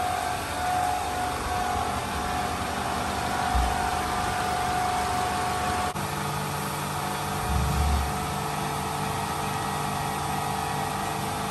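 A car engine idling steadily, a constant hum with a steady tone over it. The hum changes character about six seconds in, and there are two brief low thumps.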